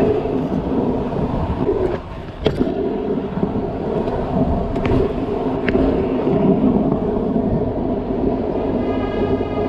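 Wind buffeting a moving camera's microphone over the steady rumble of a kick scooter's hard wheels rolling on asphalt, with a few sharp clicks along the way.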